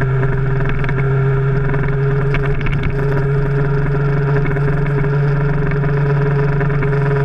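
2000 Yamaha R1's inline-four engine heard through a bike-mounted GoPro Hero 3 as a loud, steady drone that holds one pitch, with faint clicks about two to three seconds in. The rider calls the recording's sound very bad and blames the camera bouncing inside its housing, or wind.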